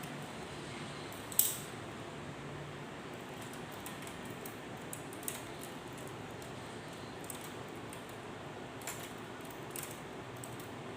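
Small metallic clicks and taps from the parts of a K Clover 815 manual typewriter being handled during cleaning, with one sharp click about a second and a half in, over a steady low hiss.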